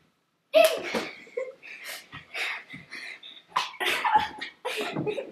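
A run of short, sharp vocal bursts from two girls staging a mock fight: grunts, yelps and breathy cries, starting about half a second in and coming several times a second.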